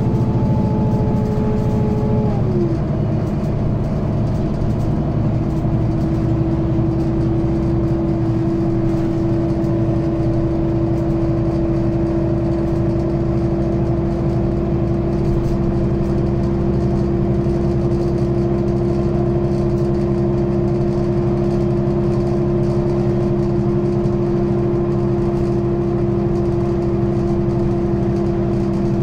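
Onboard sound of a 2005 Mercedes-Benz Citaro O530G articulated bus with its Voith DIWA 3 automatic gearbox, driving along with a steady diesel drone. A whine drops in pitch about two seconds in, then holds steady at a lower pitch.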